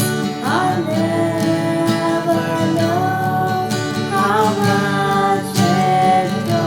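Worship band music led by acoustic guitar, with a sustained melody line sliding between notes over the chords.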